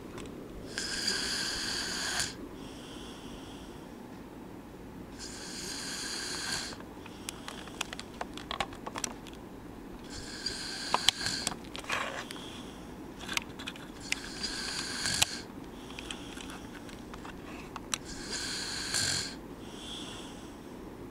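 A sleeping person snoring: about five snores, each one to two seconds long and coming roughly every four seconds, with softer breaths between some of them. Scattered sharp clicks fall among the snores in the middle.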